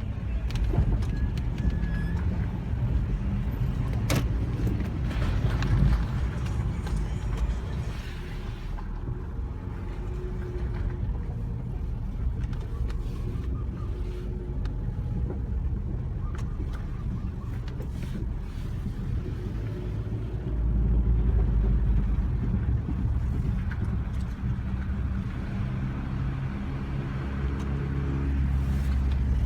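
Nissan car running, with a steady low rumble and a few sharp clicks. The rumble swells about two-thirds of the way through and again near the end. This is the grinding noise whose cause the owner is asking about.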